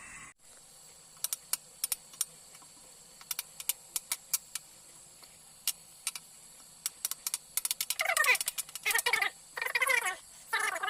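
Irregular sharp crackles, as of coconut roasting over a fire. From about eight seconds they give way to a quick run of short animal calls that bend in pitch.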